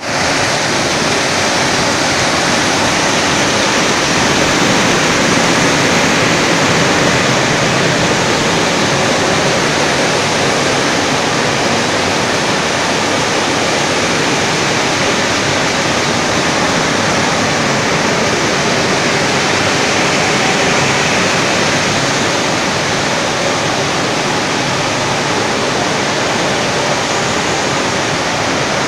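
Jigger dyeing machines running in a textile dye house: a loud, steady rushing noise with no distinct beat or tone.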